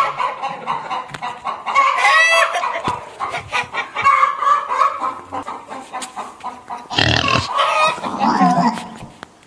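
A chicken clucking and squawking in a run of separate calls, with a wavering squawk about two seconds in.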